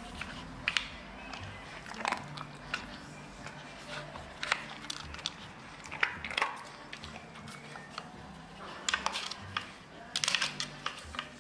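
Dog working a wooden bone-shaped treat puzzle board: irregular clicks and knocks as its wooden sliding discs and plastic cones are nudged and knocked about, mixed with biting and crunching of treats. The knocks come in short clusters, busiest near the end.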